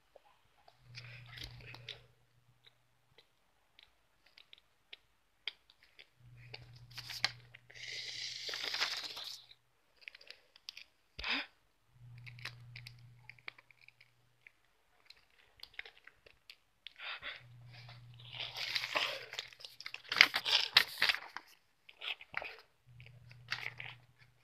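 Handling noise: rustling, scraping and crinkling as toy figures and a paper cut-out are moved about on a woven rug, with a low hum that comes and goes every few seconds.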